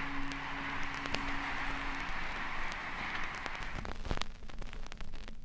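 Old-vinyl-record surface noise after the song ends: a steady hiss with scattered crackles and pops, while the last held note of the guitar song fades out over the first two seconds. About four seconds in the hiss drops away, leaving sparse faint clicks.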